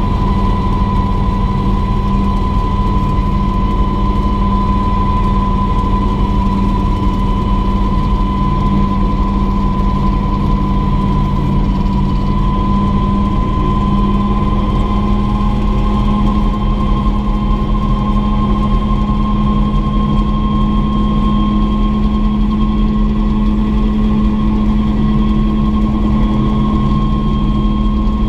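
Turbine engine of a Mosquito single-seat helicopter running steadily: a loud, steady turbine whine that creeps slightly higher in pitch, over a heavy low drone.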